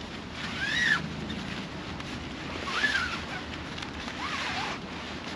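A canvas bimini top rustles and squeaks as its frame tubes are slid through the fabric sleeves. There are three short rising-and-falling squeaks, each within a burst of fabric rustle.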